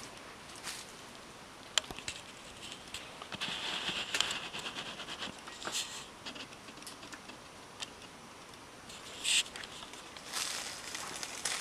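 Dry leaf litter on the forest floor rustling and crackling as small birds move about in it, with scattered sharp clicks and a few brief hissy bursts, one shortly before the end.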